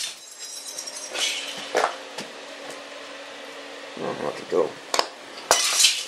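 A few light clinks and knocks, with a faint steady hum through the first two-thirds.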